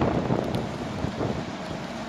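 Wind buffeting the microphone in a snowstorm, a rough rush of noise that eases off over the two seconds.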